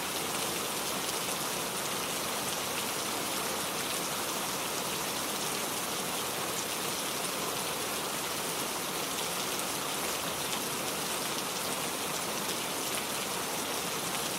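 Heavy rain falling steadily, an even hiss of drops hitting surfaces with fine pattering on top.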